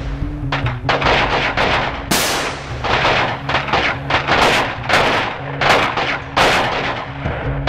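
Small-arms gunfire in a battle scene: an irregular run of sharp shots, roughly two to three a second, some louder and nearer than others.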